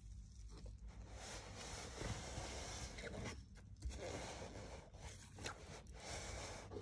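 Faint scraping and rustling that comes and goes with short breaks, from an African bullfrog shifting on a plastic tub floor while it holds a mouse in its jaws.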